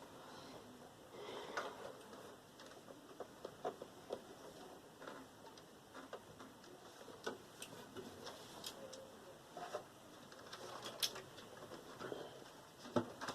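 Scattered light clicks, taps and small rattles from parts of a Sony VAIO PCV-2236 desktop tower being handled and pulled apart: screws, metal and plastic pieces. The clicks come at uneven intervals, with a few sharper ones about eleven seconds in and near the end.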